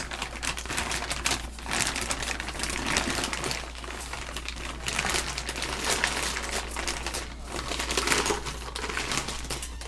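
Packaging wrap around a new turbocharger crinkling and crackling as it is handled and unwrapped, with many quick irregular rustles.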